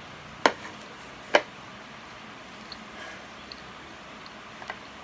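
Two sharp clicks about a second apart, a fork knocking against a ceramic plate, followed by a few faint ticks and another small click near the end, over a steady faint hiss.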